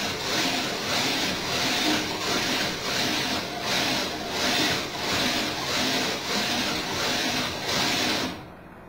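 Two small synchronised electric kite-line winches whirring, the motor noise swelling and easing about twice a second as their speed follows the kite pole's tilt back and forth. The noise cuts off suddenly near the end.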